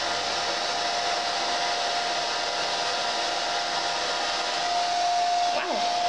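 Red by Kiss Tourmaline Ceramic 1875 Pro hair dryer running steadily, blowing air through the hose of a soft bonnet attachment: a constant rush of air with a steady motor whine.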